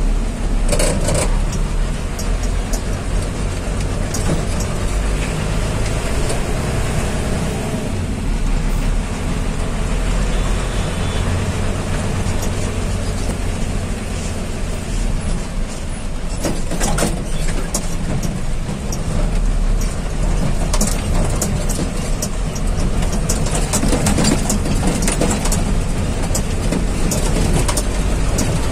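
Steady low engine drone and road rumble of a moving road vehicle, heard from on board, with scattered sharp rattles and knocks.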